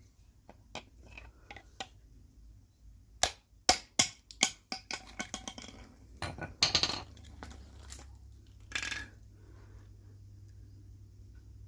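Sharp clicks and clinks of the parts of a Gardena hose spray gun being handled during disassembly, loudest about three to five seconds in, with two short noisy bursts later on.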